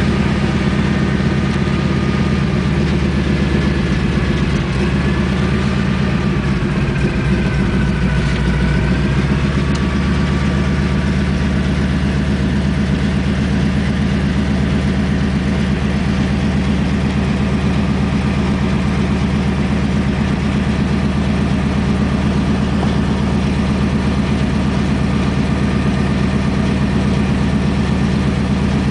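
Floatplane engine and propeller heard from inside the cabin, a steady drone while the plane taxis on the water. A fainter higher whine wavers in pitch during the first ten seconds or so.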